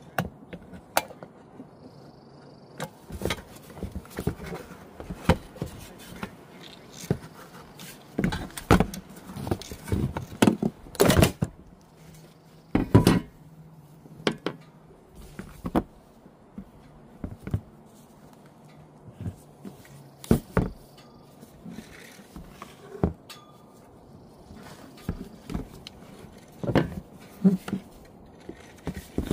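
Hard plastic knocks, clicks and scrapes as a removed EVAP charcoal canister is handled and pried apart with a screwdriver on a plastic tote lid. The knocks come irregularly, with a run of louder ones near the middle.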